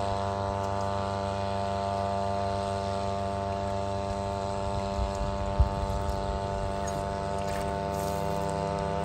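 Outboard motors on inflatable boats running out on the lake, heard as a steady, even drone, with a short knock about halfway through.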